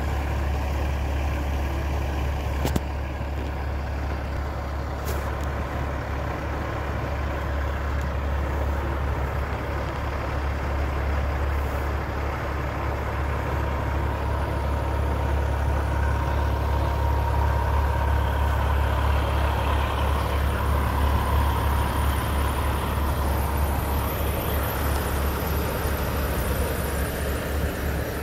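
Steady low engine rumble heard from inside a car creeping through a lot of parked semi trucks, with a short sharp click about three seconds in and a fainter one a couple of seconds later.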